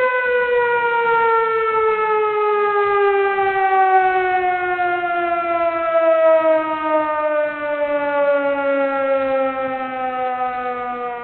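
A siren winding down: one long, unbroken tone falling slowly and steadily in pitch.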